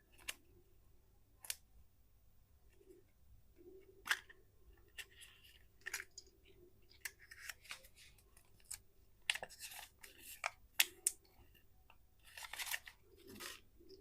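Candy packaging being handled and opened: scattered sharp clicks and taps, with several short bursts of crinkling and tearing wrapper, the densest about two-thirds of the way through and near the end.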